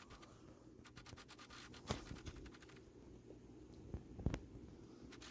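Faint scraping and clicking from hand work on the Jeep's tailgate, with two light knocks: one about two seconds in, one a little past four seconds.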